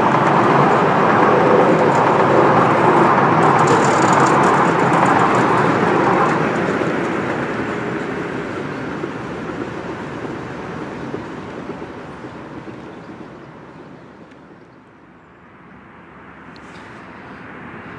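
Miniature railway coaches rolling past on the track, then a steady fade over several seconds as the train moves away.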